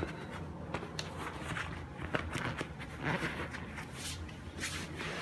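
Scattered rustling, shuffling and a few soft clicks and knocks of close handling, with no steady tone, as a thick rubber safety glove is being put on.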